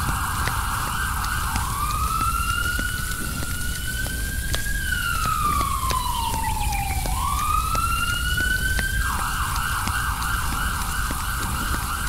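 Siren-like wail: a single tone rises slowly, falls over about two seconds, then rises again, with a steady hiss before and after it.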